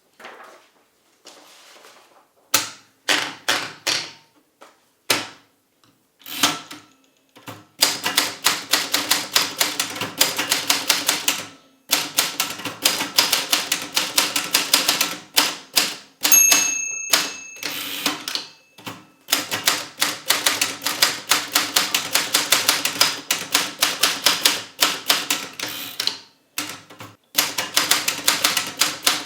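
Imperial Model 50 desk typewriter being typed on: a few separate keystrokes at first, then fast runs of keys striking, broken by short pauses. One short ringing tone sounds about halfway through.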